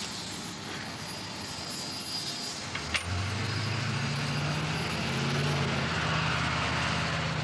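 Steady hiss, then after a click about three seconds in, a steady low engine hum comes in and grows a little louder.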